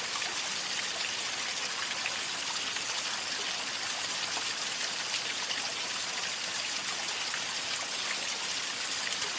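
Waterfall water falling and splashing steadily in an even hiss.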